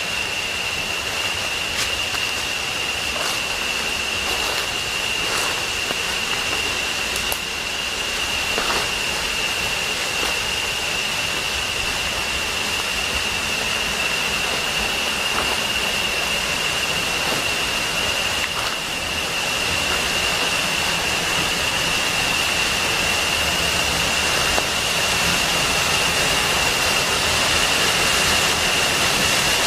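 Steady rush of a roughly 40 ft jungle waterfall at its low dry-season flow, growing a little louder in the second half. A thin steady high-pitched tone sits over the water noise.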